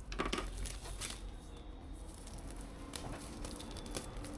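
Rustling and crinkling of things being handled, with scattered clicks and a louder burst just after the start, over a steady low hum.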